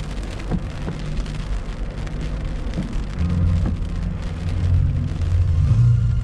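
Steady rain on a moving car's windshield and body, with a low rumble that grows louder in the second half.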